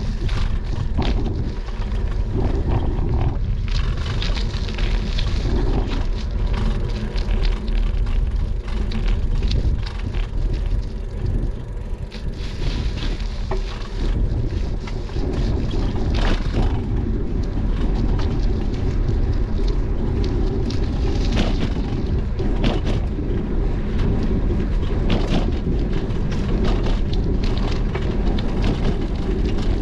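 Wind rushing over the microphone of a bicycle-mounted action camera while riding, with a steady low tyre rumble on the paved path and scattered clicks and rattles from the bike.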